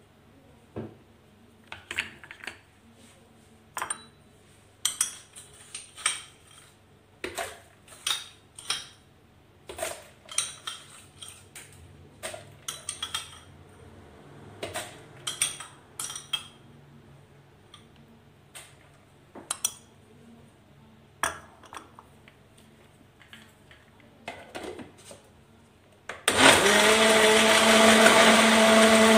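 Irregular clinks and knocks of crushed ice being added to a plastic blender jar holding a chocolate Oreo milkshake. About 26 seconds in the blender motor starts suddenly and runs steadily with a hum, crushing the ice into the shake.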